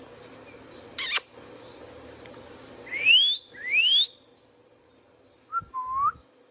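Indian ringneck parrot calling: a short harsh screech, then two clear rising whistles one after the other, then a lower short call near the end.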